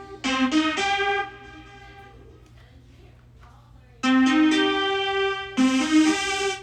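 Korg RK-100S keytar synth presets playing short phrases of a few notes: one at the start that rings and fades, then after a gap of about two seconds another phrase, followed by a brighter, hissier-sounding phrase that cuts off sharply near the end.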